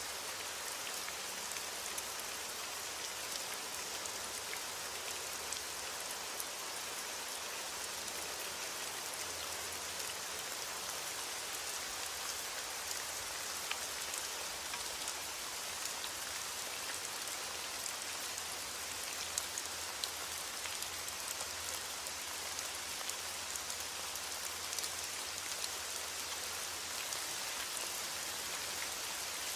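Heavy rain pattering on a window: a steady hiss of rain with many small drop ticks scattered through it.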